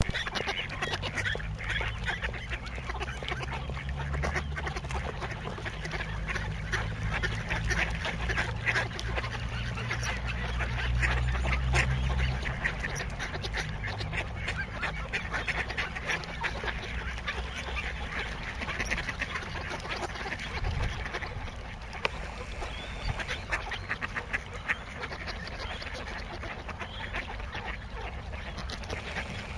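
A large flock of mallards quacking, a dense, continuous chorus of many overlapping calls. A low rumble sits under it for roughly the first twelve seconds.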